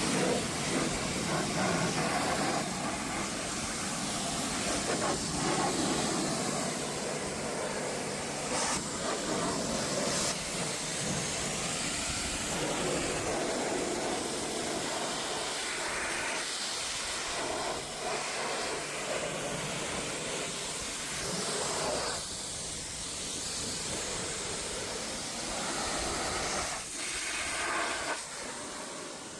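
High-pressure water spray from a washing-station pump jet, hissing steadily against the window air conditioner being washed. The hiss wavers and dips now and then as the spray moves.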